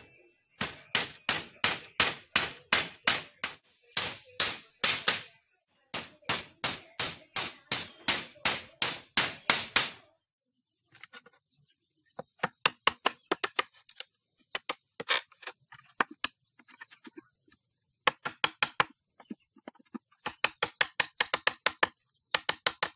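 Hammer blows on bamboo. The first half holds loud, even strikes of about three a second in runs broken by short pauses; after a gap of about a second, quicker and lighter taps follow as a blade is hammered into a bamboo pole. A steady high hiss runs underneath.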